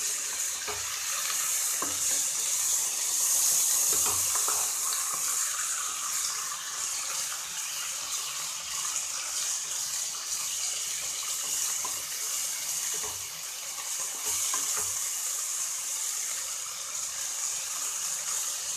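Marinated chicken pieces sizzling in hot oil in a pan on high flame, a steady hiss, with a few short knocks of the spoon as it is stirred.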